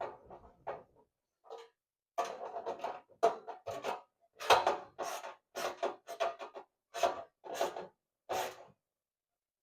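Repeated scraping and rubbing strokes of hand-tool work on a clothes dryer's parts. A few faint ones at first, then a run of about one to two strokes a second from about two seconds in.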